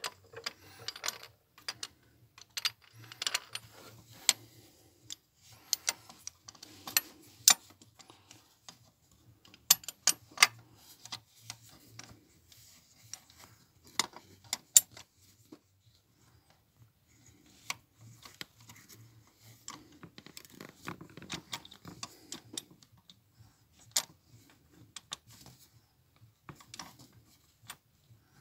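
Irregular sharp metallic clicks and clinks of a socket wrench being fitted over and turned on a newly installed engine warm-up sensor screwed into the engine.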